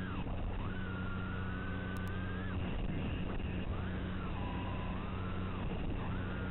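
Mini FPV racing quadcopter's motors whining, the pitch rising and falling several times as the throttle is punched and eased during hard flying, over a constant low hum.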